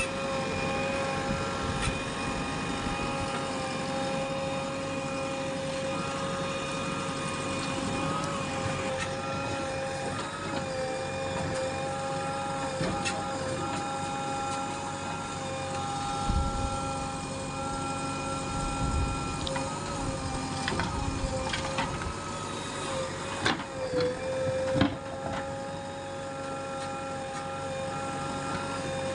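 JCB 3DX backhoe loader working: a steady engine-and-hydraulic whine that wavers and dips briefly in pitch about three quarters of the way in, with a few sharp clanks in the last third.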